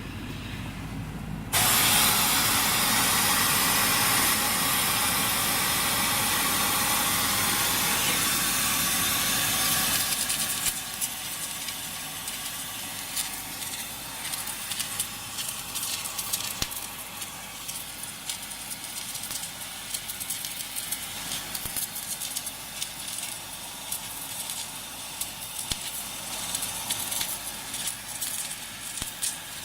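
Welding arc: a loud steady hiss starts suddenly about a second and a half in, then about ten seconds in gives way to a quieter, uneven crackle of small pops.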